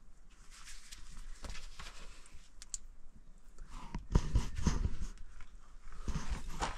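Scattered light scrapes, clicks and rustles of someone moving over rock and dirt and handling gear, busiest about four to five seconds in and again near the end.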